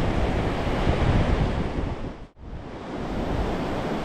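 Wind buffeting the GoPro Hero 10 Black's built-in microphone in about 19 mph wind, a heavy low rumble with surf underneath. A little over two seconds in, the sound drops out almost to silence for an instant and comes back quieter, building up again.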